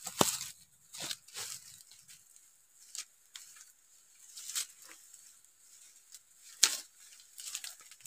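Dry bamboo leaves and twigs crackling and rustling in a scatter of short snaps and scuffles, with one sharp snap, the loudest, about two-thirds of the way through.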